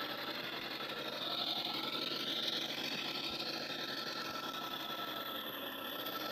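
Electric motor and gear drivetrain of a scale RC crawler truck whining steadily, the whine rising in pitch about a second in and easing back down a few seconds later as the throttle changes.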